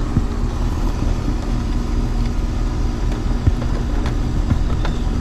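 Steady low mechanical hum and rumble, with a few light clicks.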